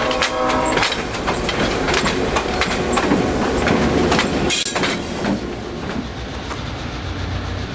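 Diesel locomotive horn, cut off under a second in, then the train's wheels clicking over rail joints as it rolls past. After about four and a half seconds the clicking gives way to a quieter, steady low rumble.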